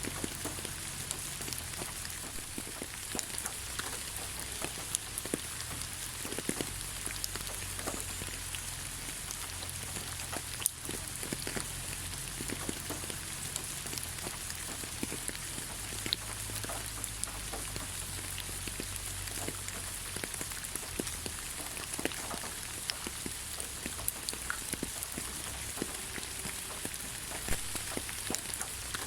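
Steady rain falling on the ground: an even hiss with many individual drops striking close by, scattered throughout.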